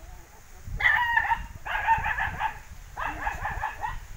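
A small dog or puppy yapping in quick runs of high-pitched yaps: three bursts, the first starting about a second in.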